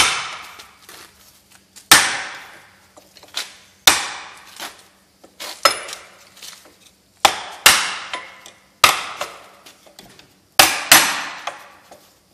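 Sheet metal hammer striking the edge of an aluminum wing rib held against a clamped wooden form: about a dozen sharp blows, one every second or two, each ringing briefly. The rib edge is being bent over a little at a time rather than all at once, to keep the metal from stretching.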